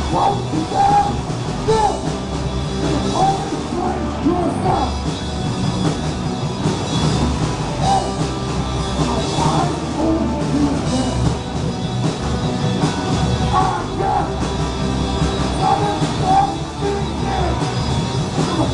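A punk rock band playing live and loud, with guitars, bass and drums, and vocals over the top.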